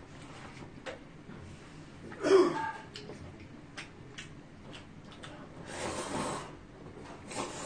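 A man slurping spicy jjamppong noodles, with a loud short snort-like breath about two seconds in and a longer slurp near six seconds. Small clicks fall in between.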